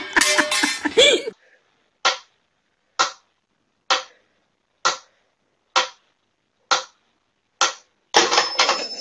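Mechanical metronome ticking steadily, one sharp tick a little under every second, seven ticks in a row. A loud jumble of noise fills about the first second, and another loud sound comes in just before the end.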